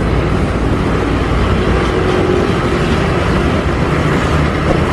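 Farm tractor's diesel engine running steadily while pulling a plough through a field.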